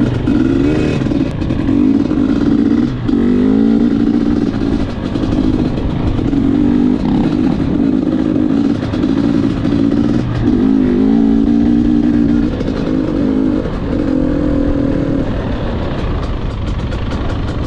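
Gas Gas EC 250 two-stroke enduro motorcycle being ridden, its engine revving up and dropping back again and again as the throttle is opened and closed.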